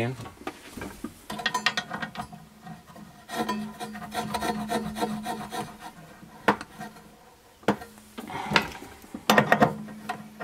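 Small metal parts being worked by hand: a brass burner jet being threaded back into a propane cooktop's gas fitting, with scraping and rubbing and clusters of small clicks as a wrench is fitted to the fitting, including two sharp single clicks a little past the middle.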